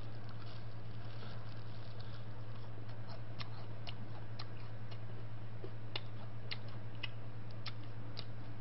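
Chewing a mouthful of crispy fried chicken: sparse sharp crunches, more frequent after a few seconds, about one every half second. A steady low hum runs underneath.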